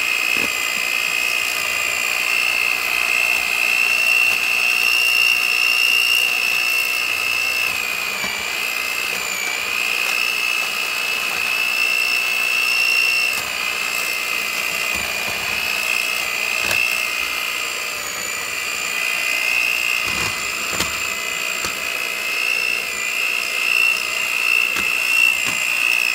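Electric hand mixer running steadily, its beaters shredding boiled chicken breasts in a bowl: a high motor whine whose pitch wavers slightly, with a few faint knocks.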